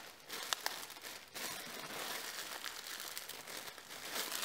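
Clear plastic packaging bag crinkling as it is handled and opened, with a couple of small sharp ticks about half a second in.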